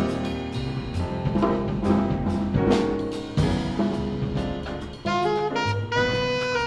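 Small jazz combo playing: alto saxophone lead over grand piano, upright bass and drum kit with steady cymbal strokes. Near the end the saxophone holds a few long notes.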